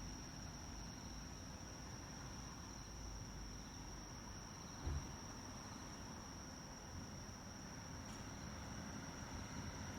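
Insects singing: one steady, high-pitched trill, over a faint low rumble, with a brief low thump about halfway through.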